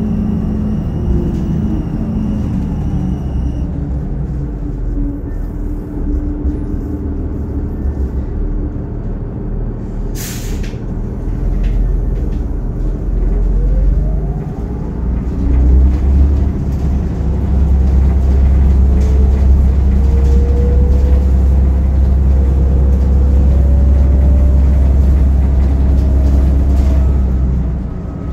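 2009 New Flyer DE41LFR hybrid bus, Cummins ISL diesel with Allison EP-40 hybrid drive, running: the engine drones under a whine that glides down and then up. A short hiss of air, like an air brake release, about ten seconds in. From about fifteen seconds the engine runs louder with a steady deep drone and the whine climbs slowly, dropping back just before the end.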